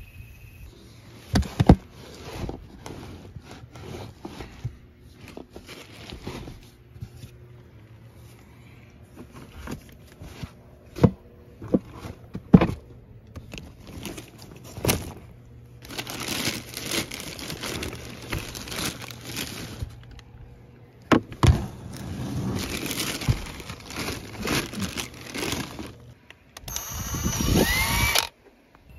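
Rummaging through plastic bags and gear: crinkling plastic with scattered knocks and clatters. Near the end comes a short rising whine that cuts off suddenly.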